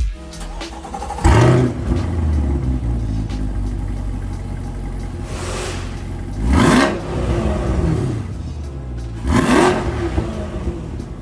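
A C8 Corvette's V8 engine running, with three short throttle blips: about a second in, around the middle, and near the end.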